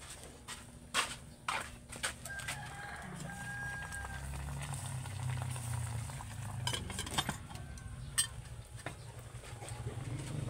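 Metal pots and a pot lid clinking and knocking on a wood-fire grill, a handful of sharp knocks scattered through, over a low steady rumble. A chicken calls briefly in the background about three seconds in.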